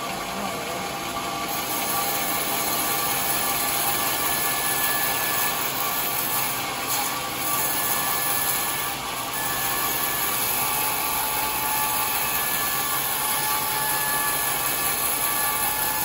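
Large band sawmill running steadily, a constant mechanical noise with a faint high whine.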